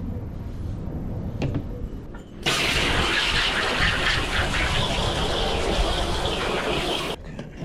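Water running from a tap: it comes on suddenly about two and a half seconds in, runs steadily, and is shut off about four and a half seconds later.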